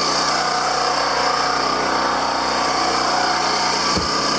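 Portable generator engine running steadily under load while it powers the cabin's air conditioner. A brief thump comes near the end.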